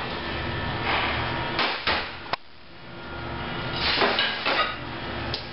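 Kitchen clatter: a few sharp knocks and clicks from things being handled and set down, about two seconds in and again near the end, with brief swishing noises between them.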